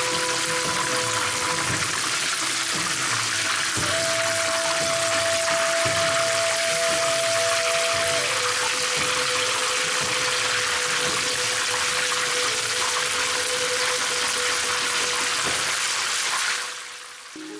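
Chicken wings deep-frying in a pan of hot oil: a loud, steady sizzle that fades out near the end.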